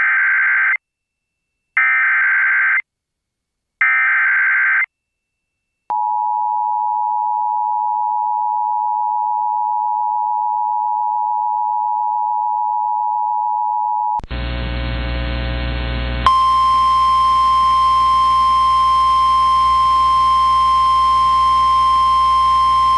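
Emergency Alert System alert tones: three short bursts of warbling SAME digital header data, each about a second long, then the two-tone EAS attention signal (853 and 960 Hz together) held for about eight seconds. About fourteen seconds in it switches to a brief buzz, then a single steady tone near 1050 Hz, the NOAA Weather Radio warning alarm tone, starts.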